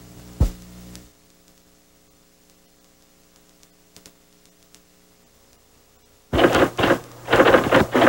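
Faint steady mains hum with a soft thunk about half a second in, then near silence on an old VHS television recording. About six seconds in, a loud run of sharp, irregular strokes starts abruptly as the film's soundtrack resumes.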